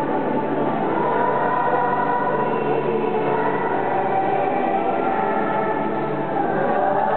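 Choir singing a hymn, many voices holding long, steady notes.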